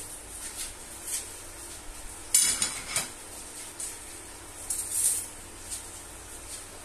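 A few scattered light clinks and knocks of kitchen utensils and dishes being handled, the loudest about two and a half seconds in.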